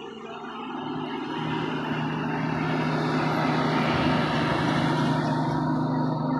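Diesel dump truck engine running steadily, growing louder over the first two seconds as the truck draws near and passes close by.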